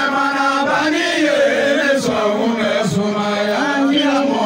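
Male voices chanting zikiri, West African Islamic devotional chant, amplified through microphones and a PA, in long held melodic lines that slide between notes.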